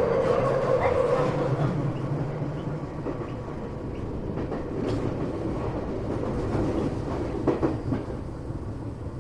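Tokyo Metro 8000 series train heard from inside the car, running: a steady rumble of wheels on rail. A whine fades out about a second and a half in, and the loudness eases after it. A few sharp clacks from the wheels come later.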